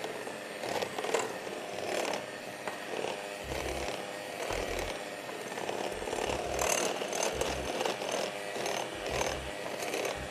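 Electric hand mixer running steadily, its twin beaters churning a dry, crumbly mix of butter, brown sugar and flour in a glass bowl.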